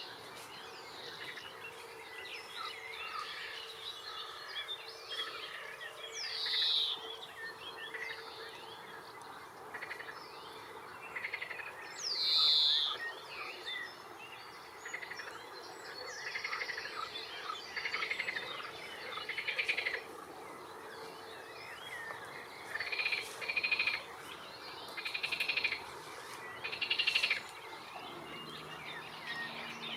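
A chorus of wild birds calling and singing over a steady background hiss, which may be the river. Two loud, high calls sweep downward in pitch about six and twelve seconds in, and three short buzzy, rattling phrases come near the end.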